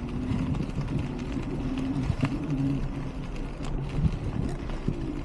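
Three-wheeled adaptive mountain bike riding over a rough dirt trail: tyres rolling on dirt and stones, with scattered knocks and rattles from the bike and a low hum that rises and falls.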